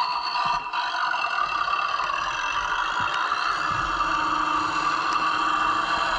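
Scale RC model Kirovets K-700 tractor driving, its electric motor and gears giving a steady whine that grows slightly louder as it comes closer.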